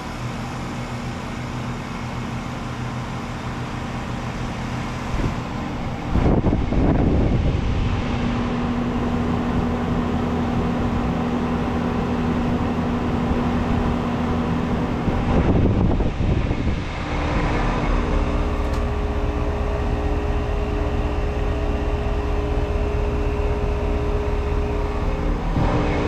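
2003 Carrier WeatherMaker 2.5-ton heat pump outdoor unit running through a defrost cycle with a steady mechanical hum. Two loud whooshing surges about two seconds long come some ten seconds apart, typical of refrigerant rushing as the reversing valve shifts. A steadier hum and low rumble follow.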